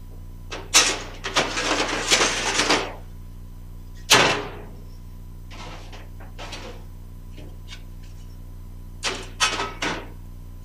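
Clanks, rattles and knocks from the sheet-steel floor of an FJ40 Land Cruiser body tub being pressed and worked by hand to get it lying flat: a rattling stretch in the first few seconds, one sharp knock about four seconds in, and a short cluster of clanks near the end.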